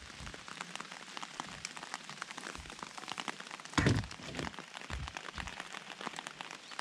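Steady rain pattering on a wet wooden deck, many fine drops ticking. About four seconds in, a louder thump with a brief rustle stands out above the rain.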